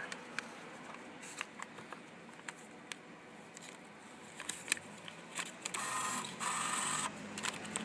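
Beer vending machine being operated: scattered clicks and taps of buttons and coin or note handling, then its mechanism whirs in two short spells, about six seconds in.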